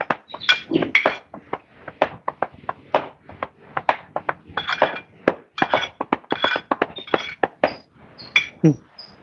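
Irregular clicking and knocking, several sharp strokes a second, with short high bird chirps near the end.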